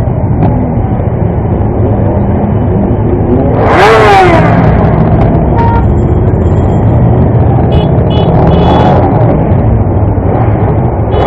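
Motorcycles riding in a group: steady engine and road noise from the bike carrying the camera. About four seconds in, a motorcycle engine revs up and drops back, and it does so again more softly near nine seconds.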